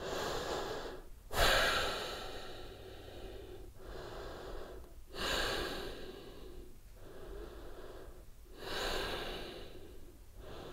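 A woman breathing slowly and audibly while holding a yoga pose: long, even breaths in and out, about three full breath cycles, each breath drawn out over a second and a half or more.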